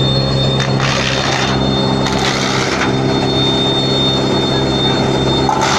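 Wood crusher machine running loud and steady with a humming drone, broken by bursts of harsher shredding noise about a second in, again around two seconds in, and near the end.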